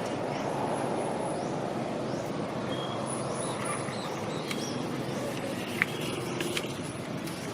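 Steady low outdoor background rumble with faint, short high chirps scattered through it and one sharp click about six seconds in.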